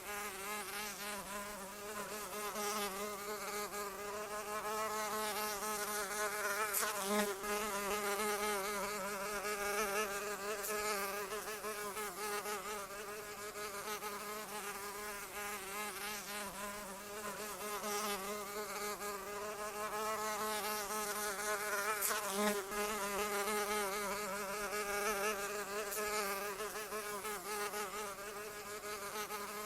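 Continuous buzz of a flying insect's beating wings. The hum wavers constantly in pitch, and its loudness swells and fades every few seconds.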